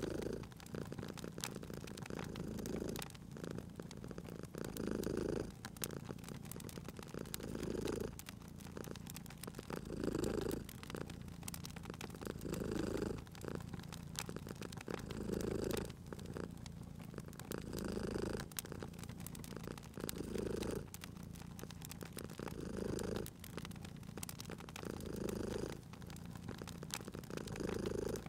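Domestic cat purring steadily, swelling louder about every two and a half seconds with each breath, over the small sharp pops and crackles of a wood fire.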